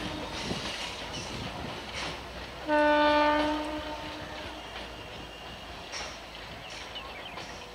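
Electric multiple unit local train sounding its horn once, a short blast of about a second, about three seconds in. Around it the train runs on the track, a steady rumble with a few faint clicks.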